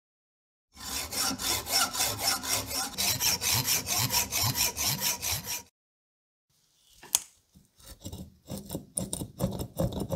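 Hand saw cutting through rusted, seized steel screw heads, with quick, even back-and-forth scraping strokes for about five seconds. After a short pause there is a sharp click, followed by more uneven rubbing strokes.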